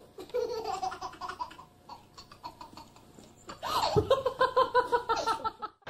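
Baby laughing: high squeals at first, then a loud run of quick belly laughs, about five a second, from a little past halfway until just before the end.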